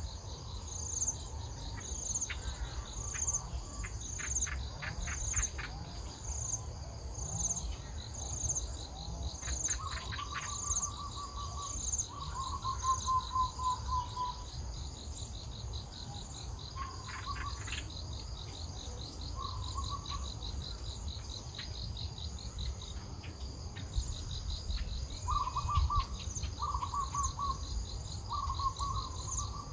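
Insects chirping steadily, a high pulsing chirp repeating a little faster than once a second over a continuous buzz. Birds call intermittently with short whistled notes and a brief trill from about ten seconds in, more often near the end. A few short bouts of rapid clicking are mixed in.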